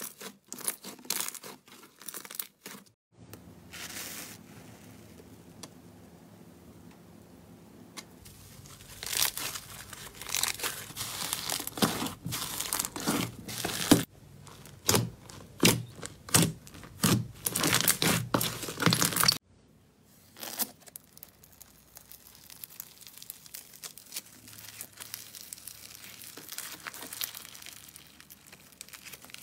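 Hands squeezing, pressing and stretching slime: sticky wet clicks and pops, with a run of loud sharp pops in the middle. Near the end, softer steady crackling as a slime packed with foam beads is stretched.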